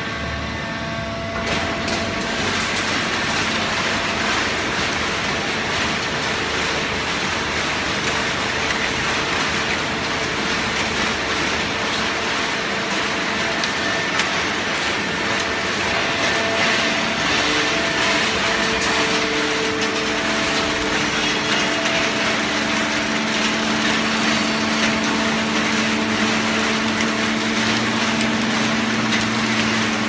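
Fully automatic horizontal hydraulic baling press running: a loud, steady mechanical din with a steady hum that grows stronger toward the end.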